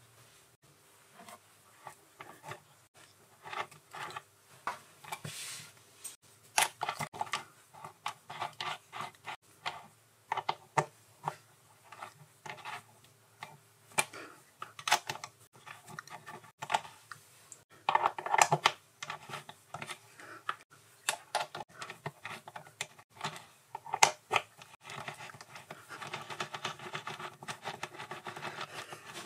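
Steel jaws being swapped in a Proxxon lathe's three-jaw chuck: irregular metallic clicks and clinks as the jaws are handled and slid into their slots, with a few short stretches of scraping.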